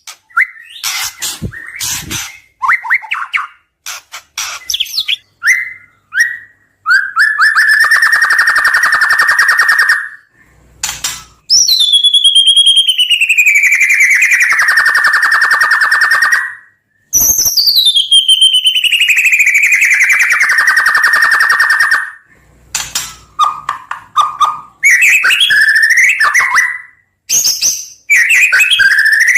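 White-rumped shama (murai batu) singing: short whistled phrases and chirps around three long trills. The first trill holds one pitch; the next two each slide downward over about five seconds.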